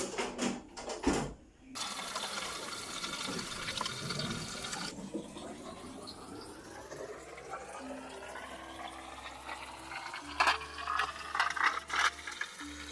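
Tap water running into a container, the pitch rising steadily as the container fills. A few knocks and clatters come at the start and again about ten seconds in.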